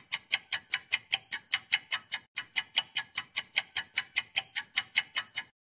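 Rapid, perfectly even clock-style ticking, about five ticks a second, used as a sound effect; it cuts off sharply at the end.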